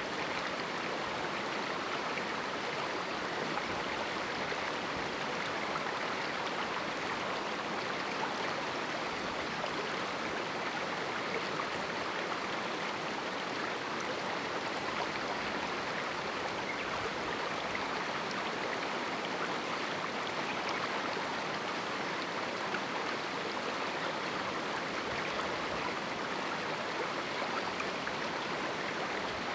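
Small river flowing through a rocky canyon, a steady, even rush of water over stones with no pauses or single events.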